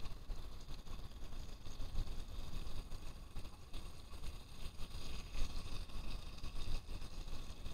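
Wind buffeting the microphone, an uneven low rumble that rises and falls in gusts.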